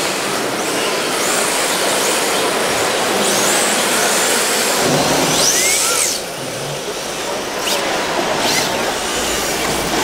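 1/10-scale electric RC drift cars running around a smooth track: high whines rising and falling, over the steady din of a busy hall.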